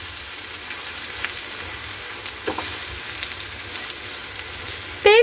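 Ground masala paste sizzling steadily in hot oil in a nonstick pan as a spatula stirs it, with a few faint clicks of the spatula against the pan, while the paste is being fried.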